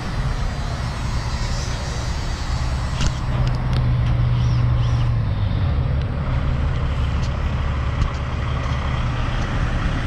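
Heavy diesel truck engine idling with a steady low drone, its note briefly higher for a few seconds in the middle before settling back, with a few light clicks and knocks over it.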